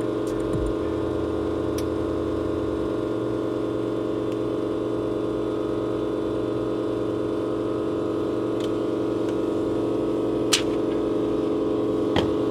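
A steady electrical machine hum made of several fixed tones, with a couple of light clicks in the last few seconds.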